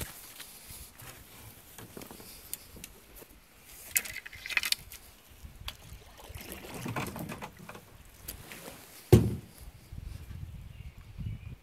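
Canoe paddling: a Grey Owl Guide paddle stroking and swishing through the water beside the hull, with scattered light knocks. A single sharp knock about nine seconds in is the loudest sound.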